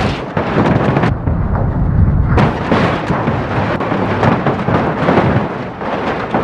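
Water spraying hard onto a muddy toy vehicle to wash the mud off: a loud, steady rushing hiss.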